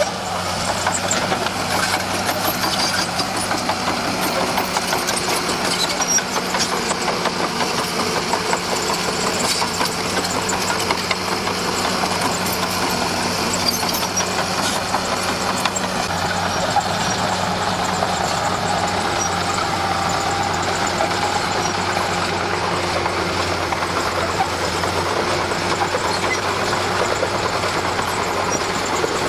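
Komatsu D41P crawler bulldozer's diesel engine running steadily, with a continuous dense clatter over it.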